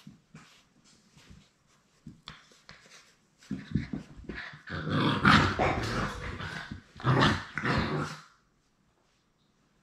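Seven-week-old Labrador Retriever puppies play-fighting, growling at each other. Soft scuffling for the first few seconds, then loud growling from about three and a half seconds in, dying away about eight seconds in.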